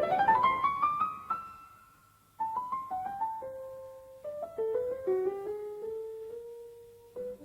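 Background piano music: a rising run of notes that fades away, a short pause about two seconds in, then a slow melody of single held notes.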